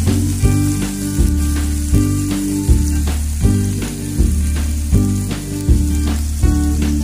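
Background music with a steady beat and a bass line, the notes changing roughly every three quarters of a second.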